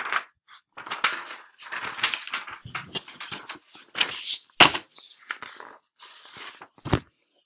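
Irregular rustling and crinkling noises close to the microphone, with two sharp knocks, one about halfway through and one near the end.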